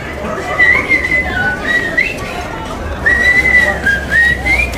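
A person whistling a tune: a string of held notes with short slides up and down between them.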